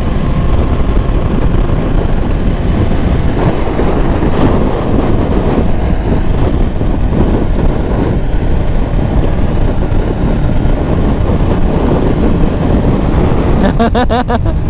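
Steady rushing wind and road noise on a moving motorcycle, with the engine running underneath. A short rapid rattle comes about a second before the end.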